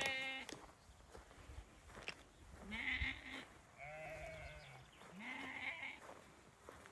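Sheep bleating, about four wavering calls: one right at the start, then three close together in the middle.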